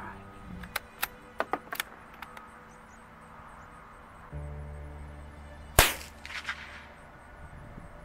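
A single shot from a CZ 452 bolt-action .22 rimfire rifle, a sharp crack about six seconds in and by far the loudest sound. It is preceded by a few light clicks about a second in and followed by a few faint clicks.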